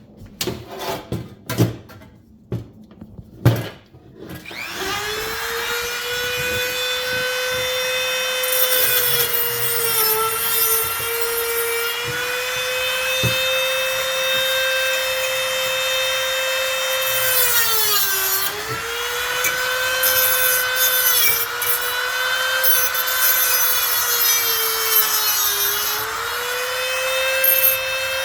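A few knocks of handling, then a Dremel rotary tool starts about four seconds in and runs steadily, a high whine with a gritty grinding noise as it cuts into a fan blade's rivet. Its pitch sags briefly a couple of times as the bit bites under load.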